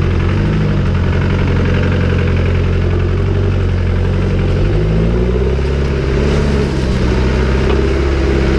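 Land Rover Defender engine running at low revs as the truck crawls slowly off-road, the engine note rising and falling slightly a little past the middle.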